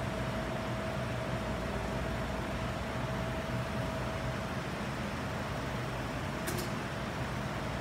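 Steady background noise of a large church interior, with a faint constant hum. A brief sharp double click about six and a half seconds in.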